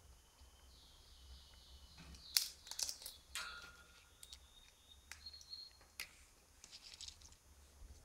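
African grey parrot calling: a few thin, high whistles mixed with sharp clicks, the strongest clicks coming between about two and three and a half seconds in, and another single click near six seconds.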